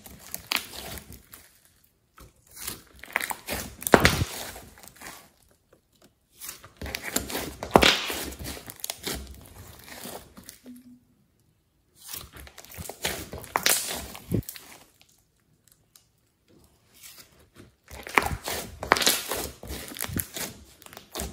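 Glossy slime mixed with clay being squeezed, kneaded and pulled apart by hand, crackling and clicking in bursts of a few seconds with short pauses between.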